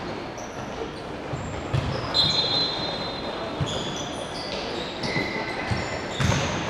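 Futsal being played on an indoor sport court: the ball thudding off players' feet a few times, with sneakers squeaking repeatedly on the court floor, one long squeak about two seconds in, all echoing in a large hall.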